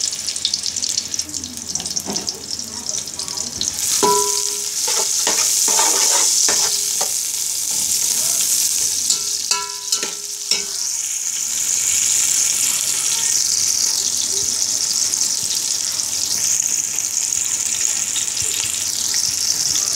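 Sliced onions sizzling steadily as they fry in ghee in a metal pot. A metal spatula strikes the pot twice, about four and ten seconds in, each time with a brief ringing clink.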